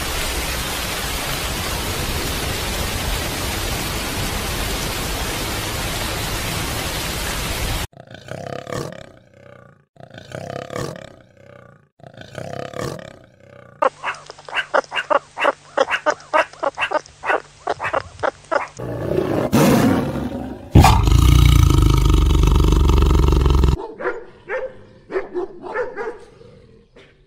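Animal calls cut together. First comes several seconds of steady rushing noise, then separate calls about a second apart, a quick run of pulsed calls at several per second, a loud, deep call lasting about three seconds, and a few short calls near the end.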